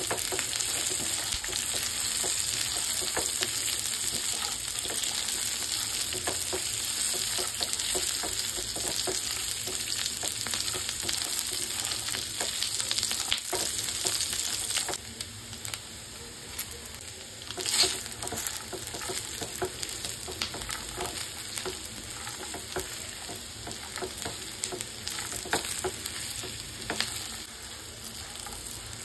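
Peanuts, onion and chillies sizzling in hot oil in a nonstick pan while a silicone spatula stirs them, with scattered clicks and scrapes against the pan. The sizzle is louder for the first half and drops abruptly about halfway through, with one sharper knock shortly after.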